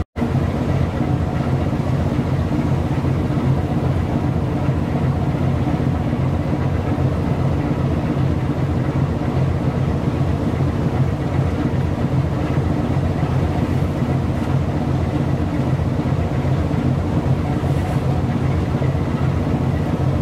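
Steady low hum of a ship's engine heard from on board, a drone of several even low tones that does not change. It drops out for an instant right at the start.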